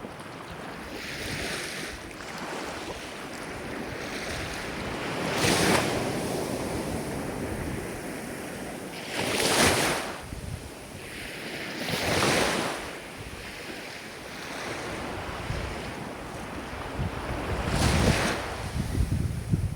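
Ocean waves breaking and washing on a shore, with four louder surges of surf, about 5, 9, 12 and 18 seconds in, over a steady wash.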